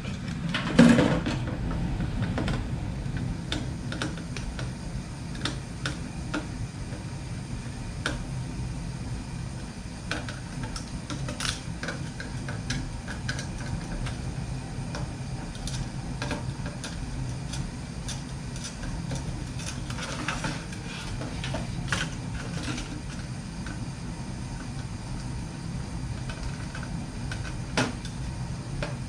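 Scattered clicks, taps and knocks of metal and plastic parts being handled during the teardown of an old electronic unit, over a steady low hum.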